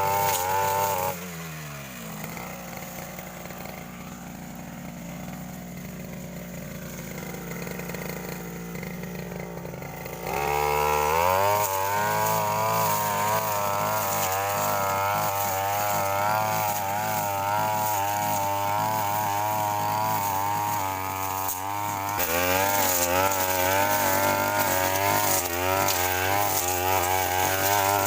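Brush cutter engine running at high revs while cutting grass and brush, its pitch wavering with the load. About a second in it drops to idle, and about ten seconds in it revs back up to full throttle and stays there.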